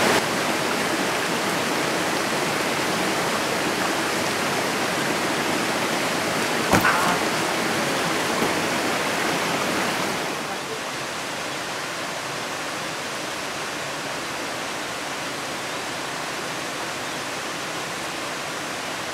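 Steady rushing of a nearby mountain stream tumbling over rocks, with a brief knock about seven seconds in. The rush gets a little quieter about ten seconds in.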